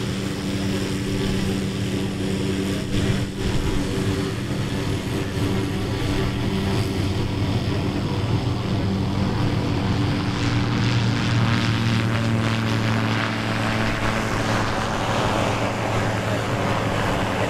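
The AutoGyro Calidus autogyro's four-cylinder Rotax engine drives its pusher propeller with a steady drone as it flies a low pass and climbs away. The drone swells a little past the middle.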